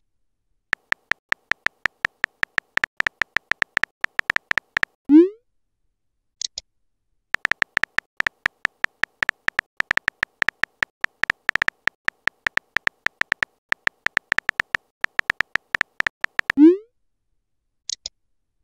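Phone keyboard typing sound effect: a long run of rapid clicks, cut off by a short rising pop as the message is sent about five seconds in, with a brief high blip about a second later. A second, longer run of typing clicks ends in the same rising send pop near the end, again followed by a brief high blip.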